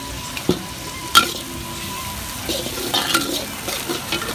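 Metal spatula stirring and scraping in a steel wok while squid and prawns fry with a steady sizzle, the spatula clanking sharply against the wok about a second in and several more times toward the end.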